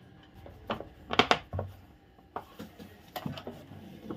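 Plastic housing of a Singer electric room heater knocking and clattering as it is handled and set upright on the workbench: a few sharp knocks, the loudest about a second in, followed by a dull thump.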